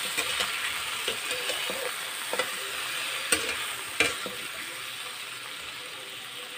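Cauliflower florets frying in hot oil in a kadai, sizzling steadily while a spatula stirs and tosses them, with sharp scrapes and knocks of the spatula against the pan about once a second. The sizzle slowly dies down, and the knocks stop after about four seconds.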